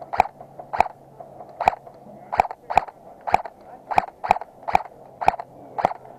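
Airsoft gun firing single shots in quick succession, about eleven sharp cracks at an uneven pace of roughly two a second.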